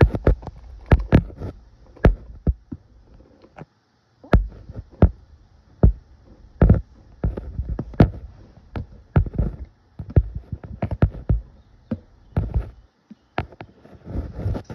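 Flour being poured and shaken from a container into a stainless steel mixing bowl, with irregular sharp knocks and low thumps a few times a second.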